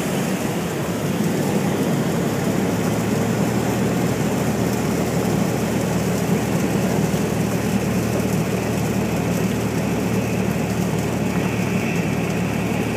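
Cabin noise of a single-engine propeller light airplane during a smooth landing and rollout: the engine runs steadily at low power under a steady rush of air and rolling noise, with no thump at touchdown.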